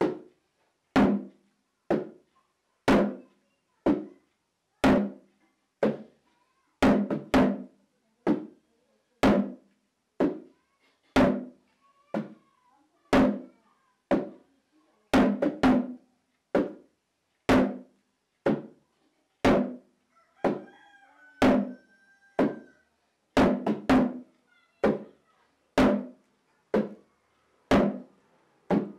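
A drum struck in a slow, even rhythm, about one beat a second with occasional quick double strokes, each beat dying away quickly.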